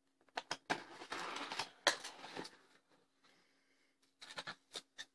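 Cardboard mailer box being opened by hand: a scraping rustle of the flaps and tape for about a second, a sharp snap, then a few light clicks and taps as the foam packing inside is handled near the end.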